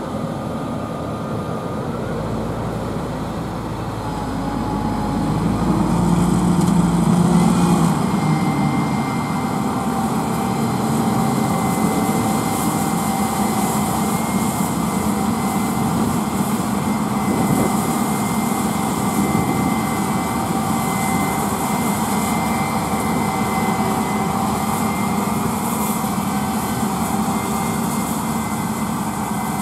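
Self-propelled pea viners harvesting: heavy diesel engines and threshing machinery running with a steady drone and whine. About two seconds in, a deep rumble builds, the sound grows louder for a few seconds, then settles back to a steady level.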